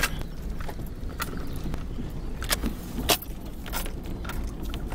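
A bunch of keys jingling and clinking in several sharp, irregular bursts, over the steady low rumble of the vehicle driving a dirt road, heard from inside the cab.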